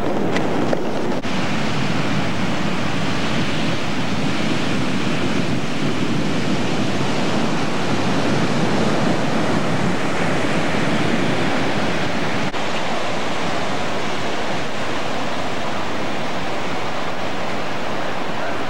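Ocean surf on a beach mixed with wind on the microphone: a steady rushing noise, broken by two brief clicks, one about a second in and one about twelve seconds in.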